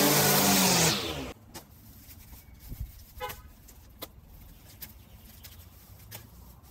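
String trimmer running at speed, then slowing with a falling pitch and stopping about a second in. Then scattered light clicks and rustles as grass and weeds are pulled by hand from gravel, with one brief pitched sound near the middle.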